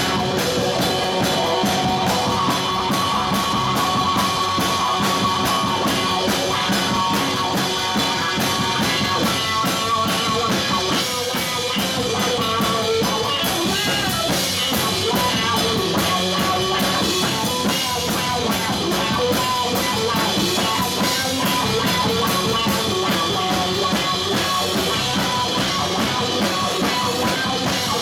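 Live rock band playing amplified music with electric guitar, electric bass and a drum kit.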